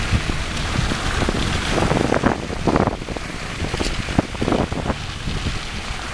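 Wind buffeting the microphone over the hiss of a sled gliding across snow, with irregular knocks and bumps.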